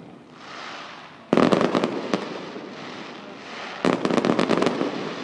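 Fireworks display: a short hiss, then a loud burst about a second in that breaks into rapid crackling, and a second crackling volley near four seconds in.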